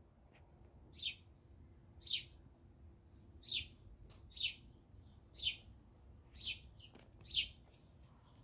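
A songbird calling: a short, high, downward-sweeping note repeated about once a second, seven times.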